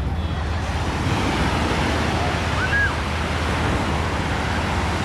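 Small waves breaking and washing up onto a sandy beach, a steady rush of surf with low wind rumble on the microphone. A brief high call rises and falls about two and a half seconds in.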